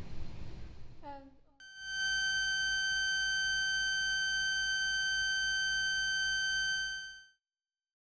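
A steady, high ringing tone, one held note with overtones over a low pulsing hum, starting about a second and a half in and fading out about seven seconds in. It follows a brief voice sound.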